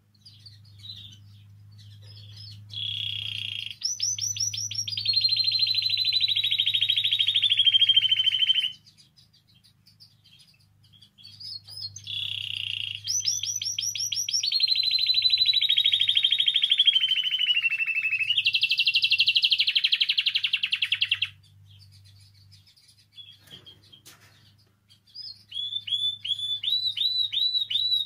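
Spanish timbrado canary singing long rolling trills that slowly fall in pitch: two long phrases with a pause between, and a third starting near the end. A faint low hum runs underneath.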